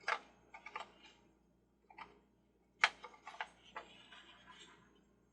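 Hard plastic parts of a toy carousel clicking and knocking as its top section is worked to line up on the wobbling centre shaft: a string of irregular light clicks, with the sharpest knock about three seconds in and a short rustle after it.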